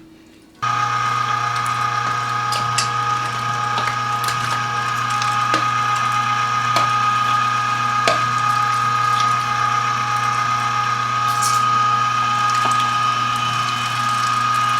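Cabela's 3/4 HP electric meat grinder switched on about half a second in and running with a steady hum, with scattered light clicks.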